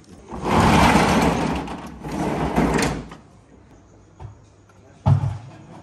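A shop door being slid open with a loud scraping rattle that lasts about two and a half seconds and then dies away. A small knock follows, and then a sharp heavy thud about a second later.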